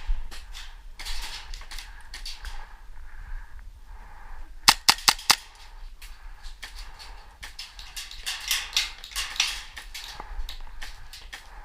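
Airsoft guns firing: a quick string of four loud shots about five seconds in, with scattered fainter shots and clicks through the rest.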